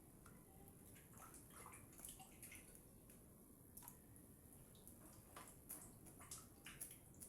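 Faint water splashing and dripping, many small irregular splashes, as cut yam pieces are washed in water.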